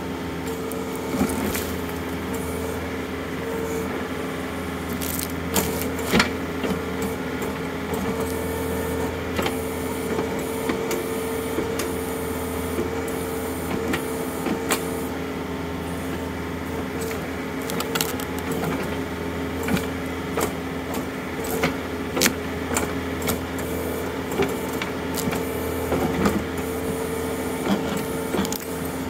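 John Deere compact utility tractor's diesel engine running steadily under hydraulic load as its backhoe bucket levers a stump and root ball out of the ground. Sharp cracks and snaps of roots and wood breaking are scattered throughout.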